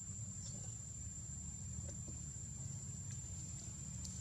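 A steady, high-pitched drone of insects in the forest, with a steady low rumble underneath and a few faint ticks.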